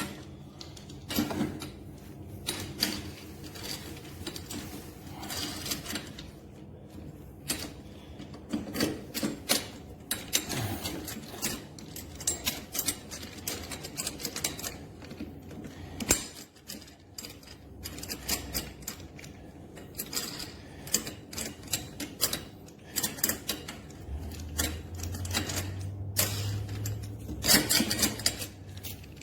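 Irregular clicking, knocking and rattling of plastic and metal mower parts being handled and fitted together during assembly. A low steady hum joins in near the end.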